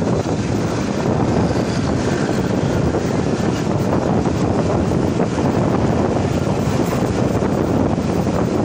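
Moving passenger train: a steady rumble of the carriage and wheels on the track, heard at the carriage window, with wind buffeting the microphone.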